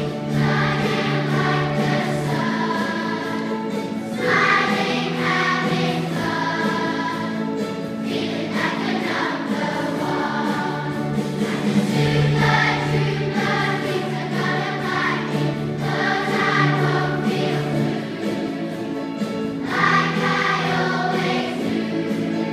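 A choir singing a medley over accompaniment, in phrases that change every second or two above low notes that are each held for several seconds.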